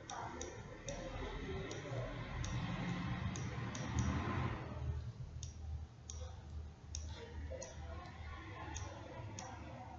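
Computer mouse clicks, about fifteen sharp single clicks at uneven intervals, stepping a chart replay forward. Under them a low background rumble grows louder over the first few seconds, peaks about four seconds in, and eases after about five seconds.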